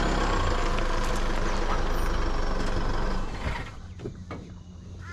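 A ute driving, its engine and tyres loud and steady for about three seconds, then dropping off to a quieter low hum.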